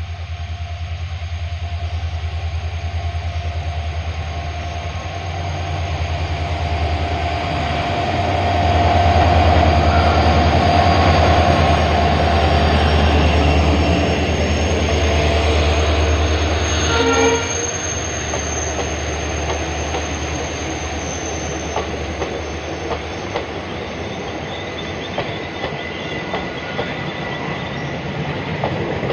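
Express passenger train passing close by. A deep hum grows louder and is strongest from about eight to seventeen seconds in, then drops away. The coaches then roll past with a steady rumble, wheels clicking over the rail joints, and a faint high squeal.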